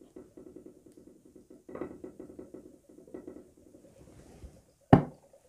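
Acetylene, made from calcium carbide and water, bubbling through the water of a gas washing bottle: a fast, even run of bubble pops that thins out after about four seconds. One sharp knock near the end.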